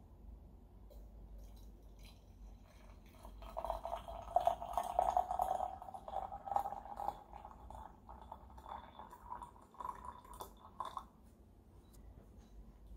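Water poured from a kettle into a glass tea pitcher over loose tea leaves. The splashing stream starts about two and a half seconds in, is loudest early in the pour, and rises slightly in pitch as the pitcher fills before stopping near the end.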